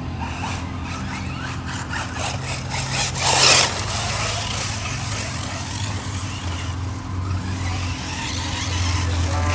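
Electric RC off-road buggy running on a dirt track, its motor whine rising and falling with the throttle over a steady low hum. A loud rushing noise comes about three and a half seconds in.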